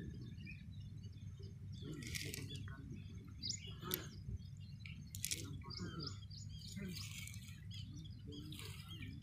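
Small birds chirping repeatedly over a steady low rumble, with a few short scratchy noises in between.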